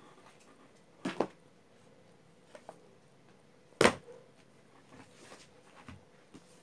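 Books being handled on a desk: a short rustle about a second in, then one sharp knock a little over halfway through as a book is set down, with faint shuffling afterwards.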